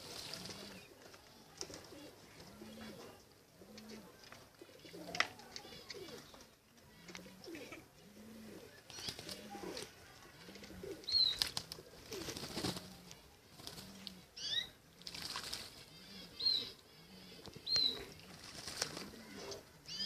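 Pigeons cooing in a steady string of low, repeated coos, with bursts of wing flapping and a few short high chirps in the second half.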